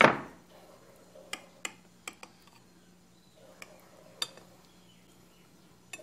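Knife and glass plate clinking: one loud clink with a short ring at the start, then a handful of light, scattered clicks.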